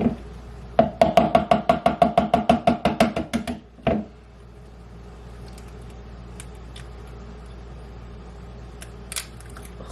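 A fork beating an egg in a bowl: a quick run of ringing clinks, about seven a second for roughly three seconds, with a single knock just before and another just after.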